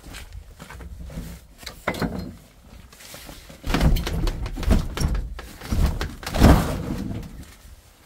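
Footsteps trudging through deep snow: a string of irregular heavy steps, thickest and loudest in the second half, over a low rumble on the microphone.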